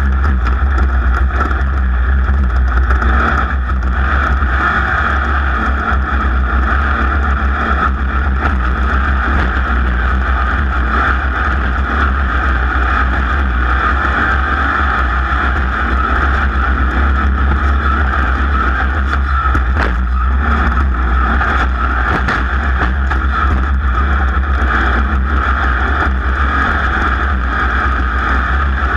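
Engine of a racing vehicle running steadily at high speed throughout, heard close up from on board, over a heavy, steady low rumble.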